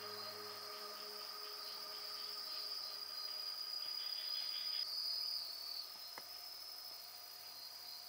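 Insects trilling steadily at a high pitch, with soft background music fading out in the first second and a faint click about six seconds in.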